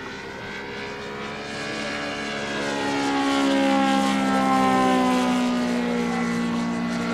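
Scale RC Yakovlev Yak-55M model's radial engine running as the plane passes overhead: the drone grows louder to a peak about four seconds in, then its pitch drops as it moves away.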